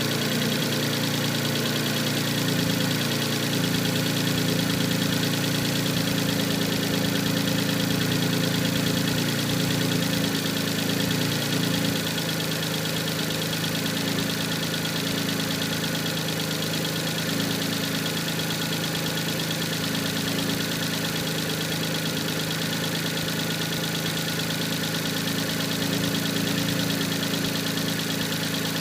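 Mitsubishi 3000GT's 3.0 L V6 idling steadily with a knocking noise. The owner traced the noise to a bent number-one connecting rod that let the piston skirt touch the crankshaft counterweights. The idle eases slightly lower about twelve seconds in.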